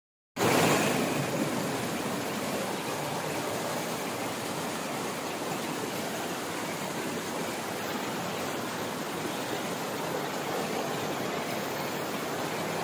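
Stream water rushing and splashing over boulders in small cascades: a steady rush of white water. It starts abruptly just after the start and is loudest in the first second.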